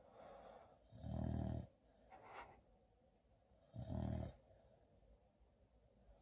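Snoring: two loud, low snores of about half a second each, one a little over a second in and one about four seconds in, with softer breathing between them.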